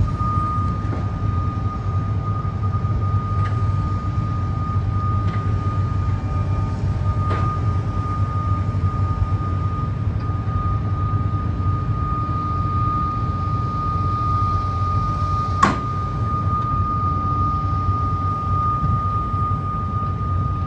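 Kobelco ED160 excavator's diesel engine running steadily, with a thin, steady high-pitched whine over it. A single sharp knock comes about three-quarters of the way through.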